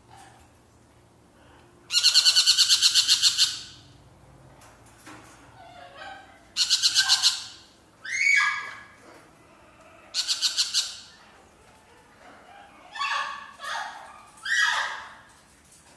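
Caged parrots calling: three harsh, rasping squawks made of rapid pulses, the first the longest, with shorter squawks falling in pitch between them and near the end.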